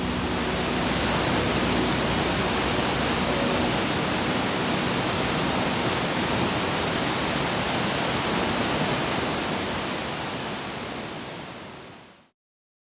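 Steady rush of falling water, fading out to silence over the last couple of seconds.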